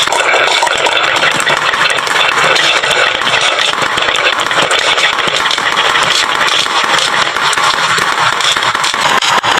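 Many marbles rolling and clattering down a wooden marble run, a dense, steady rattle of small clicks.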